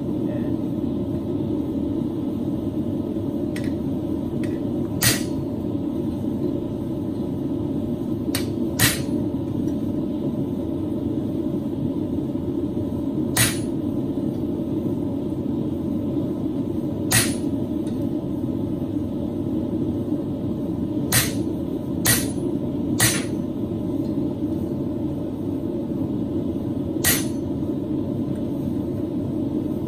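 Single hand-hammer blows on a small piece of steel on an anvil, about eight spaced strikes a second to four seconds apart, over a steady low rumble.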